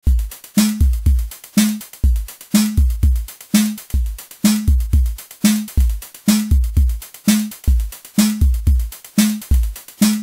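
Music with a steady drum beat: deep kick-drum thumps and sharp snare-like hits, about two a second, starting abruptly after silence.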